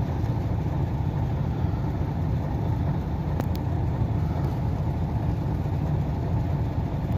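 Steady low rumble of an idling truck engine, with two faint clicks about three and a half seconds in.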